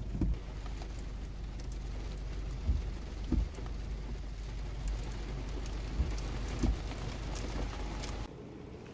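Steady rain falling, an even hiss broken by a few dull low thumps. The rain sound cuts off abruptly near the end.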